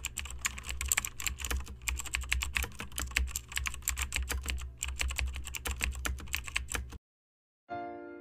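Rapid typing on a computer keyboard, a dense run of irregular key clicks over a steady low hum, stopping about seven seconds in. Soft piano music begins near the end.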